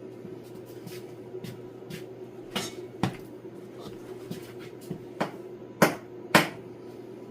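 Sharp metallic knocks and clicks of a pickup tool working inside an old tractor fuel tank to fish out debris, a handful of them, the loudest two close together near the end. A steady hum runs underneath.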